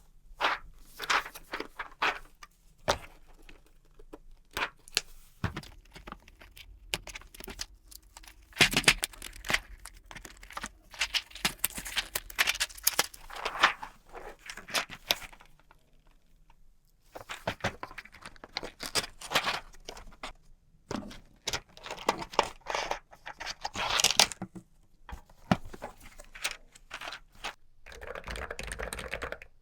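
Plastic keyboard keycaps being pulled off and pressed back on: irregular clicks and clattering with some rustling, in clusters broken by short pauses.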